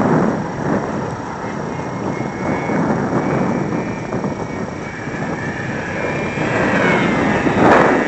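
Strong wind buffeting the microphone, with the thin whine of a GWS Corsair model plane's electric motor and propeller passing overhead, rising in pitch and getting louder late on. A loud gust hits the microphone near the end.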